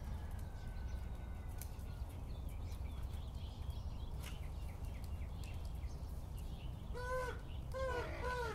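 A raven calling: a quick series of short, clear, arched call notes that starts about seven seconds in, over a steady low outdoor rumble.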